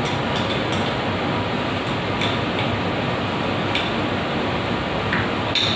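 A steady rushing noise throughout, with scattered light clicks of a small metal hand tool picking at a threaded pipe fitting in a wall water outlet, about six clicks, the sharpest near the end.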